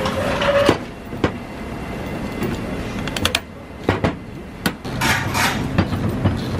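Metal parts of a steel adjustable control arm and its bolt handled by hand: scattered sharp clicks and knocks, then a wrench working a nut, with quick repeated clicking near the end.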